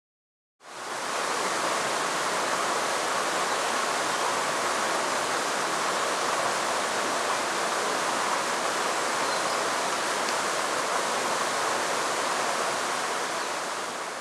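Rushing water of a small cascade on a mountain stream: a steady, even rush that starts abruptly about half a second in and fades near the end.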